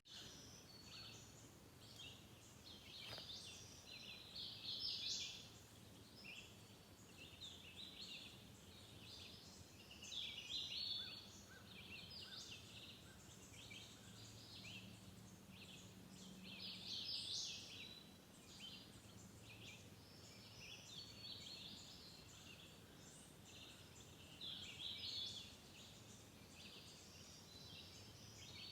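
Faint songbirds singing in a dawn chorus, with short varied song phrases coming every few seconds.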